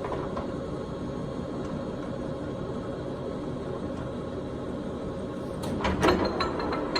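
POREBA TPK90 engine lathe's headstock gear drive running steadily with the spindle turning slowly, around 50 RPM. Near the end come a few clunks and a burst of rapid clicking and rattling from the gearing.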